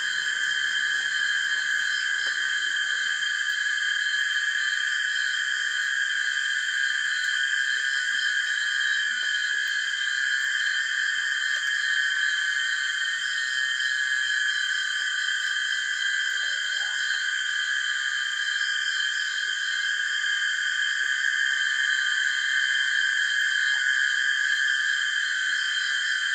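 Crickets chirping in a dense night chorus, several high pitches layered into one steady, unbroken drone.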